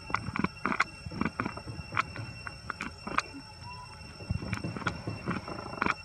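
Close, irregular clicks and soft rustles as a baby monkey handles and chews food in dry leaf litter, with a faint steady high-pitched tone underneath.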